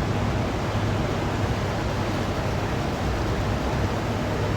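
Steady loud background noise: an even whooshing haze with a constant low hum, no distinct events.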